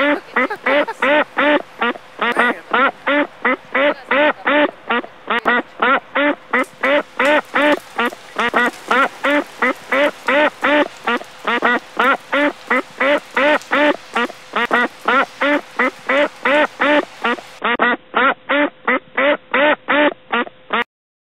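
Ducks quacking in a long, very even series, about three quacks a second, stopping just before the end.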